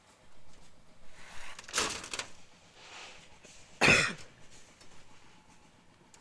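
A person coughing: two short coughs about two seconds apart, the second louder.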